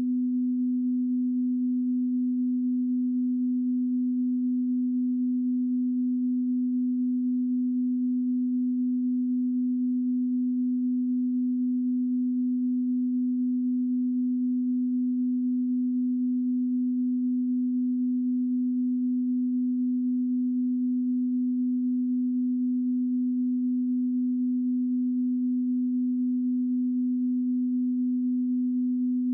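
A steady, unchanging low electronic sine-wave tone, unbroken throughout: an off-air test tone for a TV channel that has ceased broadcasting.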